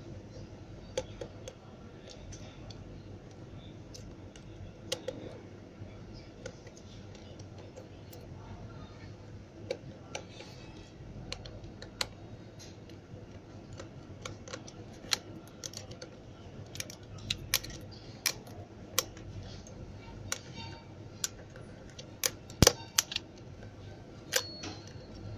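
Small precision screwdriver clicking and scraping against the screws and plastic midframe of a Lenovo A6020 smartphone as its screws are undone: a scatter of light, sharp ticks, growing more frequent in the second half, over a steady low hum.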